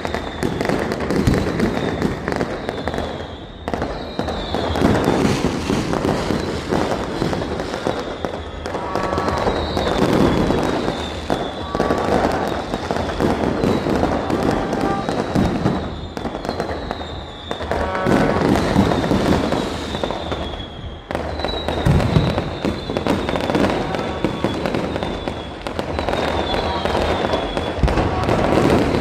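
Fireworks display: a dense, continuous run of bangs and crackling, with short high falling whistles recurring throughout and a few heavier low booms.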